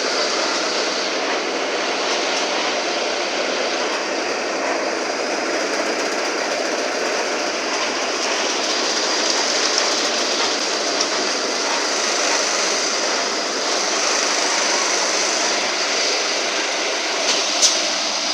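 Mercedes-Benz OF-1721 Euro 5 city bus underway, heard from inside: a steady mix of engine and road noise. A single sharp click near the end.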